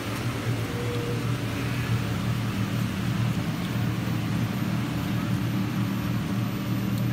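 A steady low machine hum with an even hiss over it, holding constant throughout.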